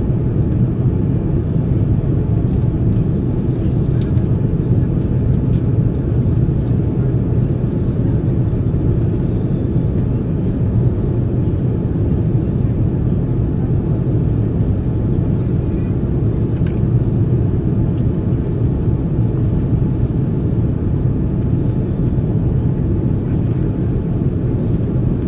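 Airbus A330-300 cabin noise in flight: a steady, low, even rumble of engine and airflow noise heard inside the fuselage, holding constant throughout.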